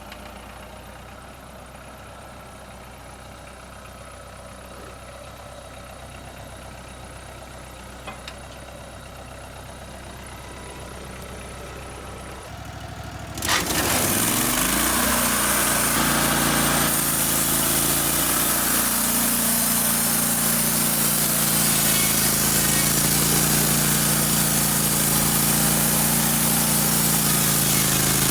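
An engine running quietly and steadily, then about halfway through an engine comes up sharply with a rising pitch and keeps running loud and steady.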